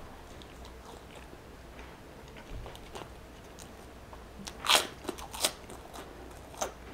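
Close-miked eating: faint chewing at first, then a sharp crunch as a shrimp chip (prawn cracker) is bitten, followed by a few smaller crisp crunches as it is chewed.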